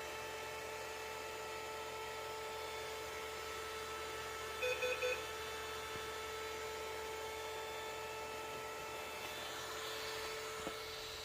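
Three quick electronic beeps about five seconds in, over a steady electrical hum, with a single click near the end.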